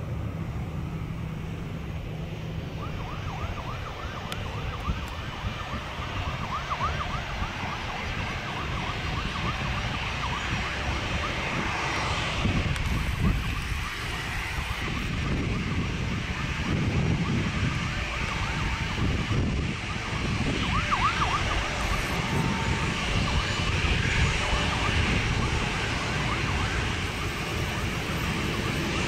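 Boeing 737-800 jet engines running at taxi power over a steady low rumble of wind, with airport fire-truck sirens wailing faintly a few times. The noise grows a little louder towards the end.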